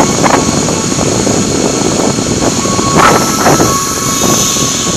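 Kawasaki KLX300SM motorcycle under way: steady wind roar on the microphone over the single-cylinder engine, with a couple of brief louder swells about three seconds in.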